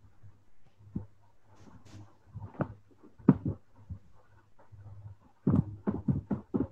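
Faint, indistinct short sounds over a low hum: scattered knocks and voice-like snatches, coming more often in the last second or so.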